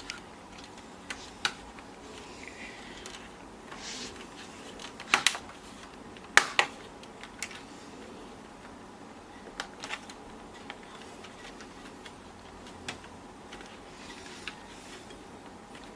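Scattered light clicks and taps of small laptop parts being handled, with two sharper pairs of clacks about five and six and a half seconds in.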